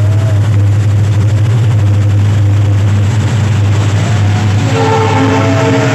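Train running with a loud, steady low rumble; near the end a steady horn of several notes at once begins to sound.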